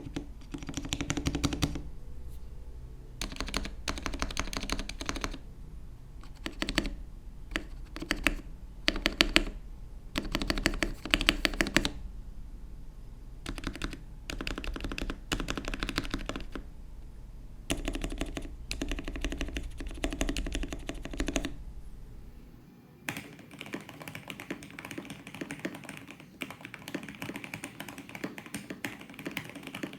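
Fast typing on a Gamakay K87 mechanical keyboard with lubed and filmed Gateron Milky Yellow linear switches, double-shot PBT keycaps and a foam dampening mod: runs of rapid keystrokes broken by short pauses, then from about two-thirds of the way in a near-continuous stream of clicks.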